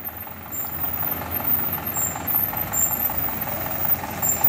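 Diesel engine of a Mitsubishi Fuso light truck running as it comes down a steep wet slope toward the listener, getting louder over the first second and then holding steady.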